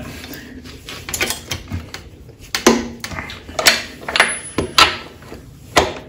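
Steel 27 mm socket and breaker bar clinking against a motorcycle's rear axle nut as they are fitted onto it: a string of sharp metal knocks at irregular intervals.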